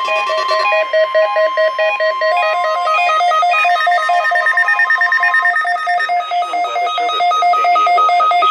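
Weather alert radios going off for a NOAA Weather Radio test: rapid electronic alarm beeping, several beeps a second, over a steady alert tone that stops about five and a half seconds in. The beeping pattern shifts twice as the receivers' alarms overlap.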